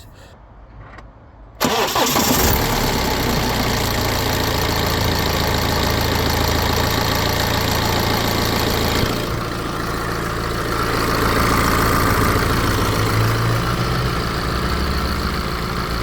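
BMW N47 four-cylinder diesel engine in a 320d starting from cold after standing over a day, catching about a second and a half in and then idling. A light timing-chain rattle lasts only about 1.5 to 2 seconds after start-up, the rattle almost completely gone with a new upper timing chain tensioner fitted. About nine seconds in the idle settles to a slightly quieter note.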